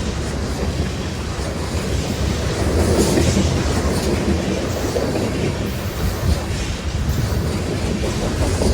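A train passing close by, its wheels giving a steady rolling noise on the rails, with strong wind buffeting the microphone.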